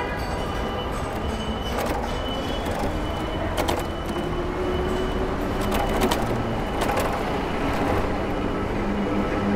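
City street traffic: a steady rumble of passing vehicles, with a few sharp clicks and a faint engine tone that rises slightly around the middle.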